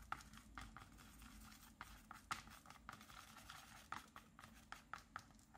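Faint, irregular little clicks and scrapes of a thin wooden stick stirring paint on a plastic palette.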